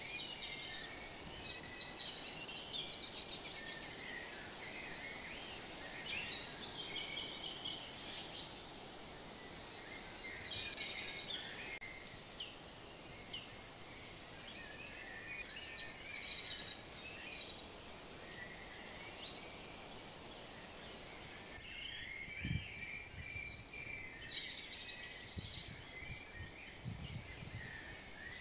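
Songbirds chirping and trilling over a steady outdoor background hiss. The birdsong carries on across a cut about three-quarters of the way in, after which there are a few low bumps.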